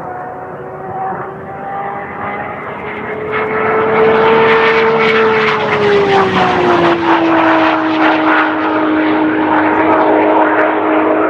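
Supercar engine running at steady high revs, getting louder about three seconds in; its pitch rises slightly, then eases smoothly down about halfway through and holds.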